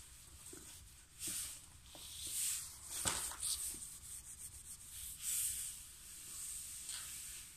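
A cloth rubbed hard over a freshly laid laminate sheet to press it down onto the chipboard: dry swishing strokes, irregular, about one a second. A single short knock about three seconds in.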